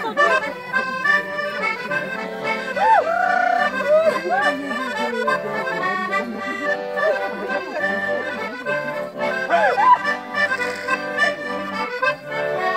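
Live accordion playing a traditional bal-musette dance tune, its bass notes in a steady rhythm. A few short sliding calls rise over the music, the loudest about three quarters of the way through.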